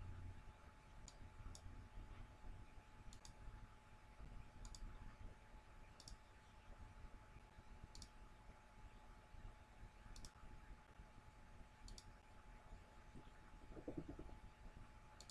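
Faint computer mouse clicks, about nine spaced a second or two apart, some in quick pairs, over near-silent room tone with a faint steady hum.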